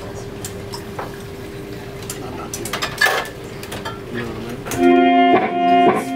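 Live instrumental rock-fusion band in a quiet stretch: one note held, with dishes and cutlery clinking. About five seconds in, loud sustained electric guitar chords come in and break off and return near the end.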